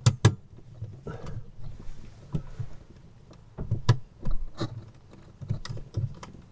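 Small screwdriver loosening the screw terminals on a Victron SmartSolar 100/20 charge controller: irregular sharp clicks and scrapes of the blade in the screw heads, with light handling knocks in between.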